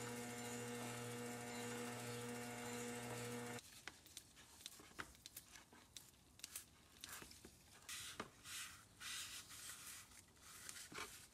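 Metal lathe running with a steady hum, spinning a barrel lap inside a steam-engine cylinder casting's bore; the hum cuts off suddenly about three and a half seconds in. After that, faint scattered clicks and rubbing as the casting is cleaned with a trigger spray bottle and a rag.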